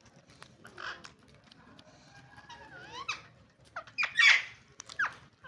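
Green ringneck parrots calling: short squawks and chirps that sweep up and down in pitch, with a wavering chattering call in the middle and one loud harsh squawk about four seconds in.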